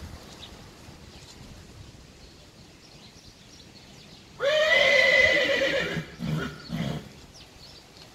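A horse neighing: one long whinny starting about four seconds in and lasting over a second, followed by two shorter, lower calls.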